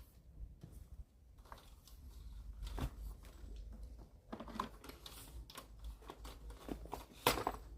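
Scattered light clicks, taps and rattles of hand handling, as a nozzle is swapped on a pressure washer wand; the washer is not running.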